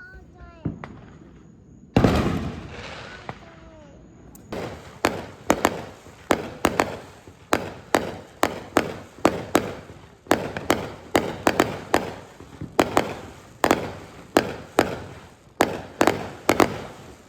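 Fireworks going off: one big boom about two seconds in that rumbles away, then a rapid string of sharp bangs, two or three a second, to the end.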